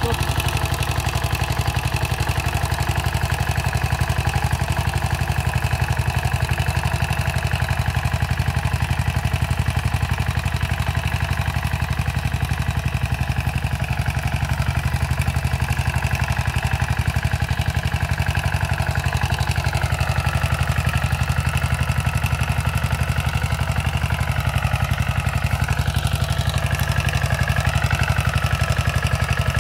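Rotary tiller's engine running steadily at constant speed while tilling plant residue into the soil.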